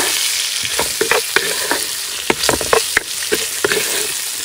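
Chopped vegetables sizzling in hot oil in a wide wok while a wooden spatula stirs and tosses them, with frequent short scrapes and knocks over a steady hiss: a quick stir-fry.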